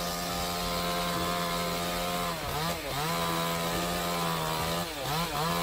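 Two-stroke chainsaw running at high revs as it cuts through a tree trunk. Its pitch drops and comes back up twice, about two and a half and five seconds in.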